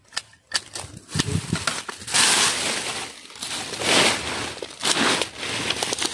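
Dry vines, twigs and grass crackling and rustling as they are pulled apart and broken by hand, with a few sharp snaps in the first half-second and several louder surges of crackling after that.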